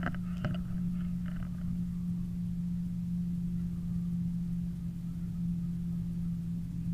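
A steady low hum throughout, with brief rustling and handling noise in the first second or so.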